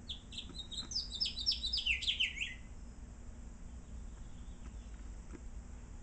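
House finch singing one quick warbling phrase of about two and a half seconds: a run of high, sliding notes that ends in lower, down-slurred notes.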